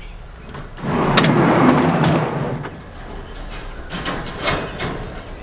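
A wire dog crate with piglets inside scraped across a pickup's plastic bed liner for about two seconds, then a few metallic clicks and rattles as the crate's wire door latch is worked.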